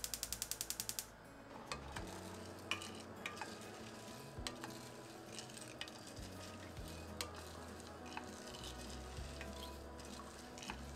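Kitchen cooking sounds. A fast run of sharp, even clicks, about seven a second, stops about a second in. After that come scattered light taps and clinks of utensils and cookware, with stirring, under soft background music.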